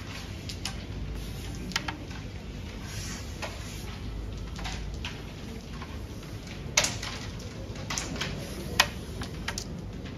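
Short sharp wooden clicks and clacks of a carrom striker and coins on a carrom board, a scattered handful of them, with the loudest knocks about seven and nine seconds in, over a steady low hum.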